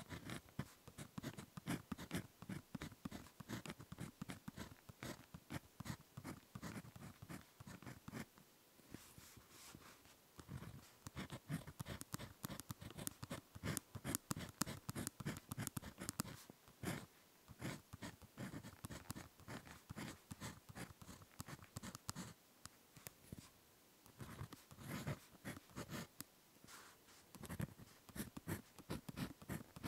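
Ballpoint pen writing on paper, close-miked: quick scratchy strokes in bursts, with brief pauses between them.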